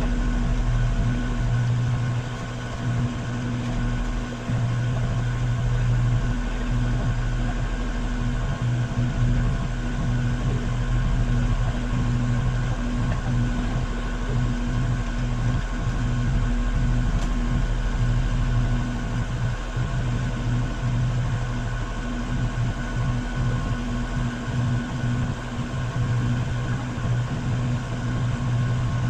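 Engine of a work machine idling steadily at a constant pitch, with no change in speed.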